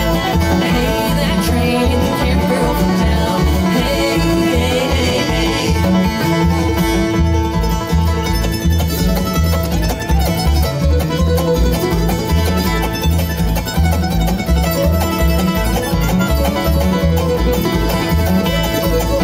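Bluegrass band playing an instrumental passage: fast banjo and guitar picking over a steady, even bass beat.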